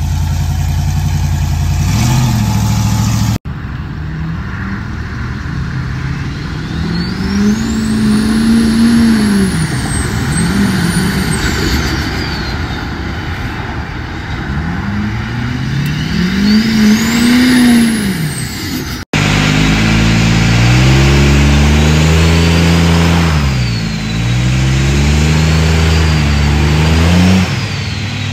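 Engines of lifted 4x4s being driven hard, in three short cuts. A mud-covered two-door Chevrolet full-size SUV's engine is at high revs. A lifted Ford Super Duty pickup's engine revs up and back down twice as it works through mud, with a high whine rising and falling with it. Last, a lifted Dodge Ram pickup's engine revs hard, dips briefly and climbs again.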